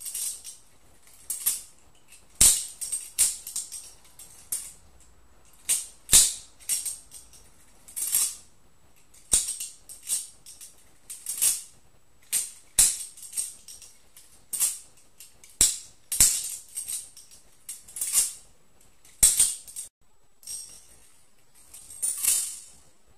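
Butterfly knife (balisong) being flipped: its metal handles and blade click and rattle against each other in short clusters, about once a second.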